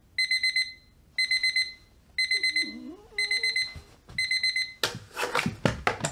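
Electronic alarm beeping: five bursts of rapid high beeps, about one burst a second. Near the end the beeping gives way to a second or so of rustling and knocking.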